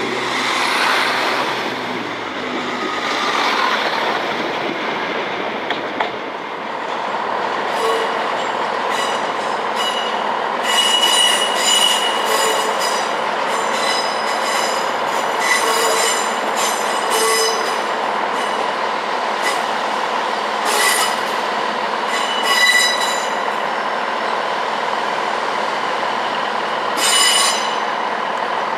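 Train wheels squealing against the rails as a train moves through the station: short high-pitched squeals, repeated many times from about eight seconds in, over a steady rumble of the train running.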